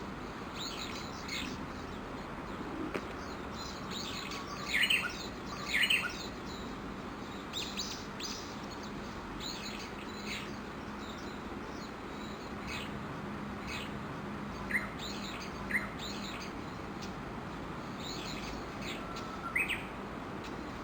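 A flock of Japanese bush warblers (uguisu) calling: many short high chirps from several birds, overlapping irregularly. The loudest pair of calls comes about five and six seconds in, with a few more loud ones in the second half.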